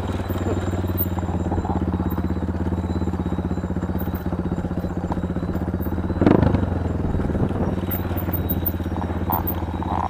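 Motorcycle engine running at a steady speed, its exhaust pulsing evenly, with a brief knock about six seconds in.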